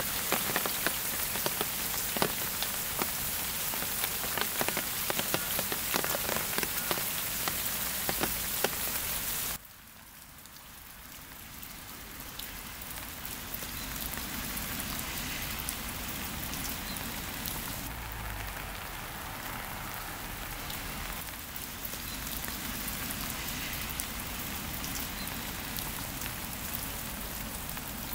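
Rain falling, at first as dense sharp drop hits on a nearby surface. A sudden cut about ten seconds in changes it to a softer, steady rain hiss that gradually grows louder.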